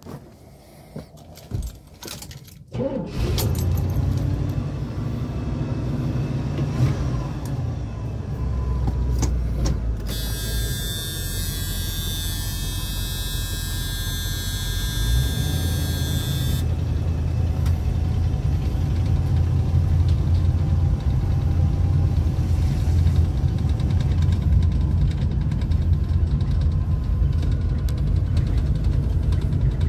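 A few clicks, then the pre-smog 455 big-block V8 of a 1973 GMC motorhome starts about three seconds in and runs with a steady rumble. The engine gets somewhat louder in the second half. A high hissing buzz sounds for several seconds midway.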